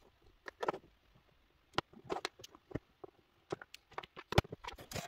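Light plastic clicks and taps of a jointed plastic action figure being handled, its limbs and parts knocking and snapping, irregular, with the sharpest click about four seconds in.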